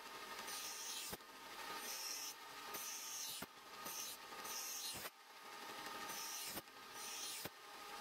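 Stainless steel knife blade ground on a spinning grinding wheel: a grinding noise in passes of about one to one and a half seconds, each building up and then breaking off abruptly.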